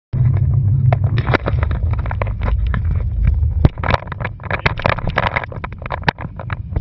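Hands bumping and scraping a camera mounted on a motorboat, many short knocks close to the microphone, over a low wind rumble that eases a little past halfway.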